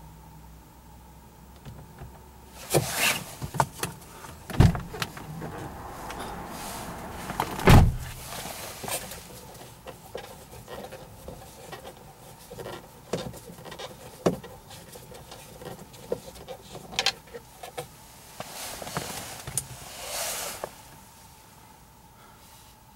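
Plastic clicks, knocks and rubbing from hands working the room-lamp housing in a car's overhead console. The loudest knock comes about eight seconds in, and there is a longer scraping rustle near the end.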